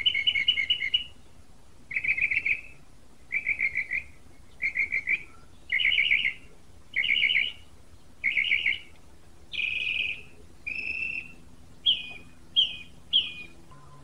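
A songbird singing a series of short, loud trilled phrases, about one a second, changing phrase type partway through and ending with three quick downslurred notes.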